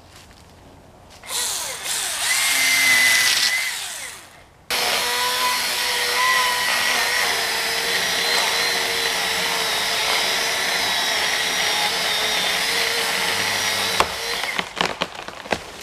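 Chainsaw running at full throttle as it cuts into a dead tree, dropping off briefly about four seconds in and then cutting steadily for about ten seconds. Near the end it stops with a sharp crack, followed by a quick series of cracks and snaps as the trunk starts to break and the tree begins to go over.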